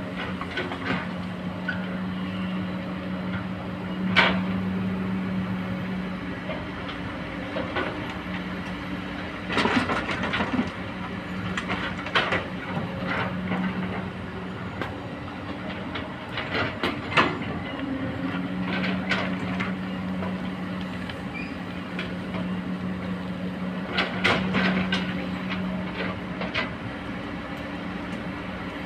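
Kobelco long-reach hydraulic excavator working: its diesel engine drones steadily, swelling and easing with the hydraulic load, while the bucket digs, swings and dumps soil. Sharp metallic clanks of the bucket and rocks come every few seconds.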